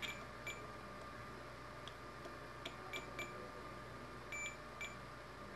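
UNI-T UT58A digital multimeter's buzzer giving about half a dozen short, irregular high chirps as the probe tip is touched to points on an engine control unit's circuit board, with a few faint ticks of the probe on the board.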